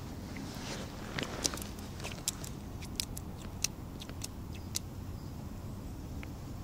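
Small sharp clicks of fingers handling a tiny ice-fishing hook and bloodworm bait, about eight of them, scattered over a steady low outdoor rumble.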